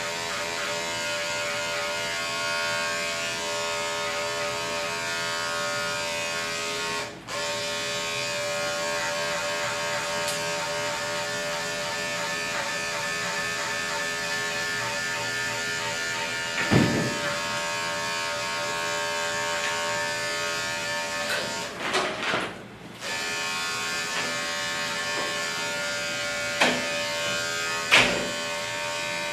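Andis five-speed electric dog clipper buzzing steadily as it clips a curly-coated dog's hair. The buzz dips briefly twice, and a few sharp knocks are heard in the second half.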